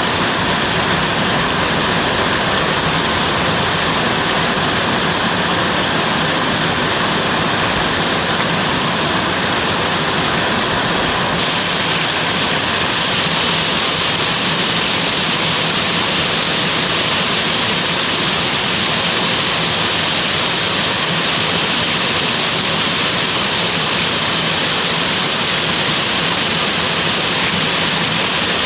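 Rain falling steadily, an even hiss with no let-up. About eleven seconds in, the upper part of the hiss turns brighter and stays that way.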